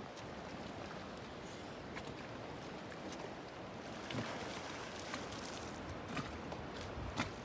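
Water sloshing and lapping against a small boat's hull, with a few short, sharp splashy sounds in the second half, the loudest near the end.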